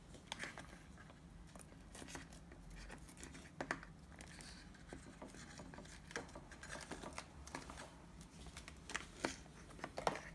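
Hot foil retort pouch of instant pumpkin potage being handled and opened over a bowl: faint crinkling with scattered sharp clicks.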